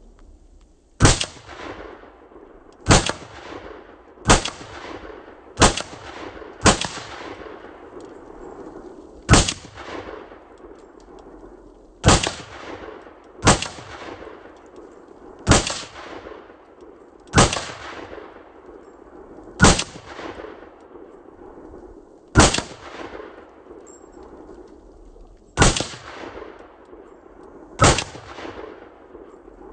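5.56 mm rifle firing single shots at an unhurried, uneven pace, about fourteen shots one to three seconds apart, each followed by a short echo.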